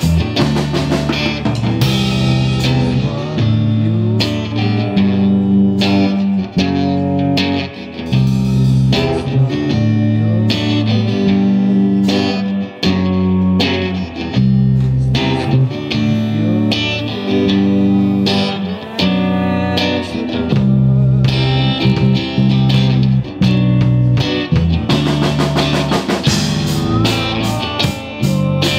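Live rock band playing: electric guitars over bass and drums, with the drumming growing busier near the end.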